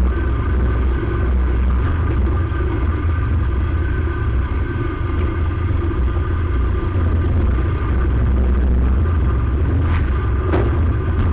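Predator 212 single-cylinder four-stroke engine running steadily as the small car drives over rough ground, with a low rumble and a steady high whine. A couple of sharp knocks come near the end.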